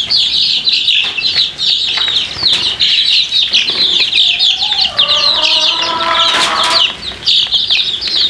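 A flock of young chicks peeping loudly and without a break, many short high falling peeps overlapping, with a lower clucking call from an older chicken between about four and seven seconds in.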